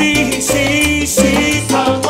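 Live salsa band playing a passage without lead vocals: a bass line and Latin percussion under horn and piano lines.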